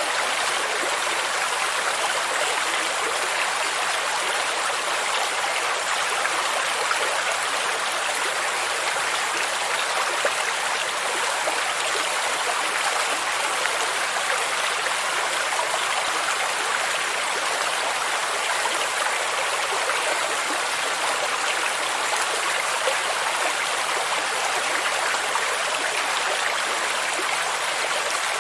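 A stream of water running steadily over rocks, a continuous even rushing with small splashes and trickles.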